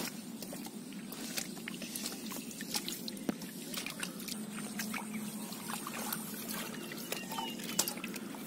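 Hands squelching and splashing in shallow muddy water, with many small wet clicks and drips scattered through, over a low steady background hum.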